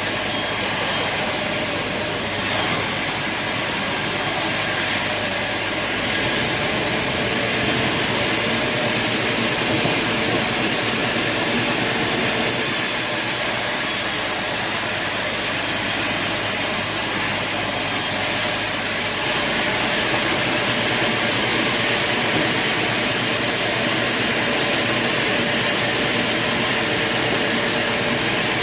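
Sawmill saw running steadily, cutting through wood, with an even machine noise throughout.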